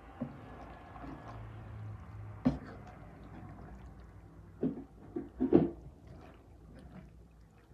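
Wooden spoon stirring sausages and vegetables in a frying pan, with a few scrapes and knocks against the pan, the loudest a little over five seconds in.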